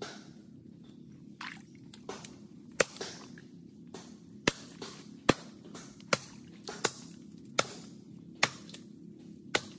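Dead mangrove wood being chopped with a blade to split it open for the shipworms inside: a steady run of sharp single chops, a little more than one a second.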